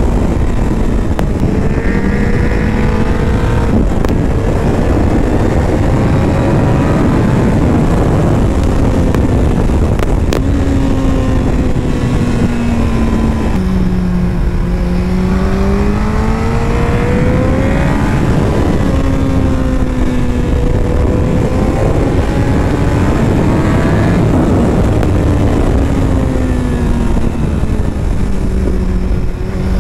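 Kawasaki ZZR 1400's inline-four engine under way, its pitch climbing and falling again and again as the rider accelerates, shifts and eases off, over a steady rush of wind noise.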